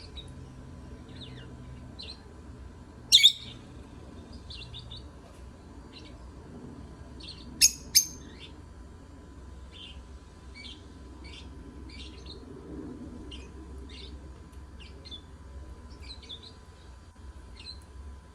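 Lovebirds chirping: a steady scatter of short high chirps, with one loud sharp call about three seconds in and two more close together about eight seconds in.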